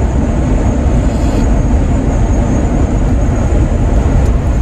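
Steady road and engine noise of a Jeep driving, heard from inside the cabin.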